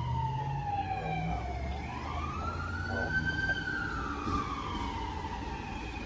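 Fire department battalion chief's SUV siren wailing, its pitch sliding slowly down and back up about every four seconds.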